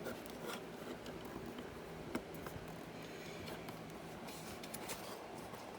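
Faint clicks and light handling of plastic LEGO bricks, a few scattered ticks over a steady low hum.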